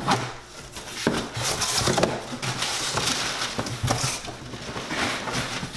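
A blade slitting packing tape on a large cardboard box, the cardboard flaps being pulled open, and crumpled paper packing rustling inside. It is a scratchy, rustling sound with several sharp knocks of cardboard.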